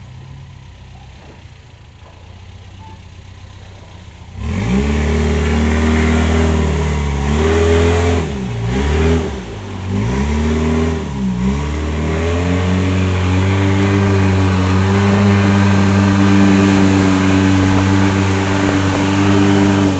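Motorboat engine ticking over low, then opened up suddenly about four seconds in and running loud, its pitch dipping and rising back a few times before it settles into a steady, loud run.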